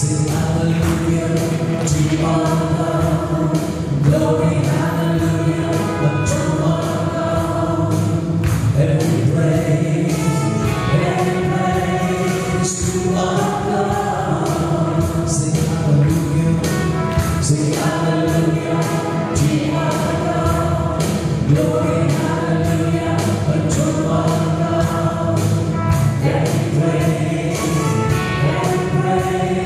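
Gospel worship song: a man and a woman singing into microphones over electronic keyboard accompaniment with a steady beat, the congregation singing along.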